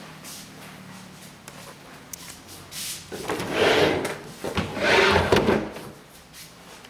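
White built-in closet's folding doors being opened by hand: two noisy sweeps about a second long each, the first about three seconds in and the second just after it.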